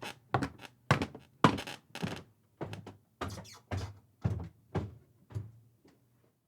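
A series of thuds, about two a second, some landing as a quick double knock, growing fainter and stopping near the end.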